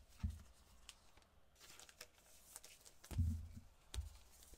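Quiet handling noise of trading-card packs on a table: two soft low thumps, one just after the start and a louder one about three seconds in, with a few faint clicks and light crinkles.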